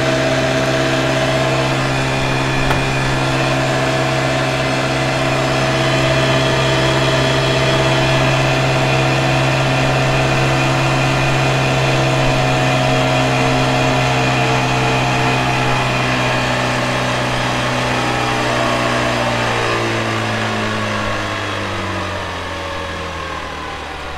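Custom 48-volt electric motor on a converted 35 hp Evinrude outboard running at speed with a steady hum and whine. About 18 seconds in, its pitch starts to fall and it grows quieter as the motor slows down.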